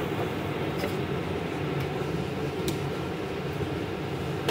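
Steady low rushing noise of lit gas stove burners under iron tawas, with a few faint clicks. It cuts off suddenly at the end.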